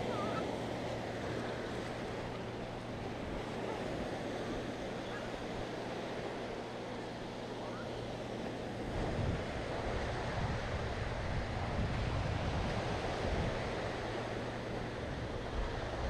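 Sea waves washing onto a sandy beach in a steady surf wash, with a low rumble growing stronger about nine seconds in.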